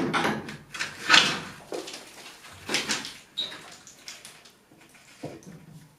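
Scrapes and knocks of hand tools being worked against a wooden picture rail on a wall: a few short rasping bursts, the loudest about a second in, with a softer knock near the end.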